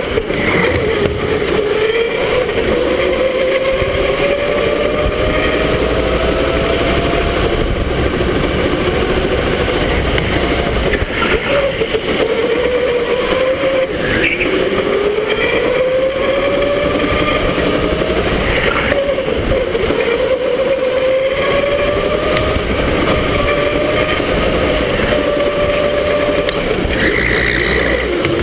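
Electric go-kart motor whining at speed, its pitch rising as the kart accelerates and dropping back several times as it slows for corners, over a steady rush of wind and tyre noise on the kart-mounted camera.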